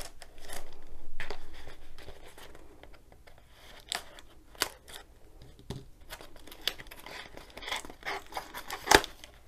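Scissors slicing through brown packing tape on a cardboard box, followed by cardboard flaps being prised open and crinkling, in a run of scrapes and clicks. One sharp crack near the end is the loudest sound.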